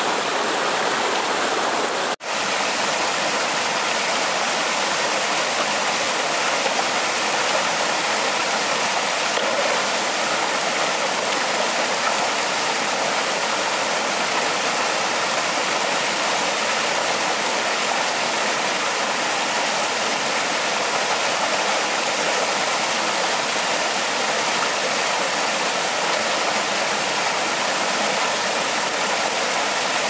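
Natural stream running: a loud, steady rush of water that cuts out for an instant about two seconds in.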